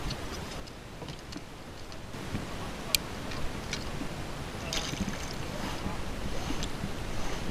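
Low rumble of wind on the microphone and water against a kayak, with an anchor rope and float being handled. A sharp click comes about three seconds in, and a short splash near five seconds in as the anchor float drops into the water.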